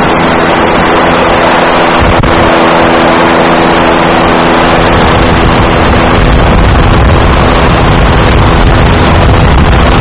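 Steady, loud engine drone of a tour craft, with wind rushing over the microphone.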